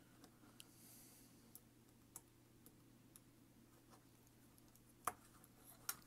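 Near silence with scattered faint clicks and light taps of small model parts and a pin being handled on a metal build jig; two sharper taps come near the end.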